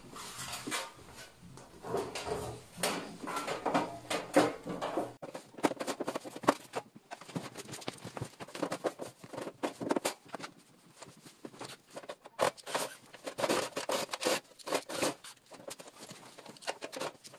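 Irregular clatter of handling: knocks, clicks and scrapes as the electric heater's perforated metal bottom cover is fitted back on and the heater is moved about.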